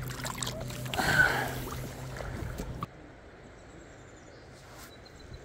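Water sloshing and splashing around hands in a shallow river as a small fish is let go, loudest about a second in. After about three seconds it cuts suddenly to a quieter, steady wash of river ambience.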